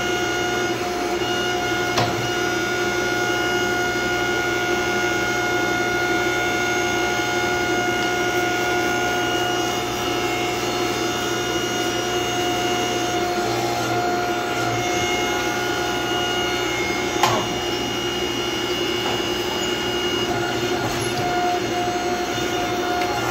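Hydraulic forging press's pump and motor running with a steady hum and whine, with a couple of short metal knocks as hot steel is handled at the press.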